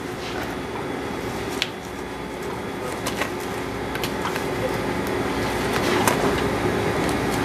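A steady mechanical hum, with a few small clicks and knocks from a knife working through a snow goose carcass as the legs are cut away.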